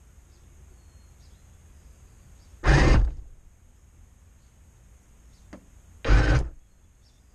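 Electric drive motors and gearbox of a radio-controlled model tank running in two short bursts, about three and six seconds in, with a faint low hum between them.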